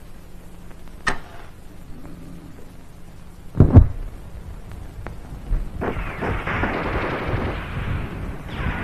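A house fire in a film soundtrack: a heavy thump about three and a half seconds in, then from about six seconds in a steady rush of flames burning.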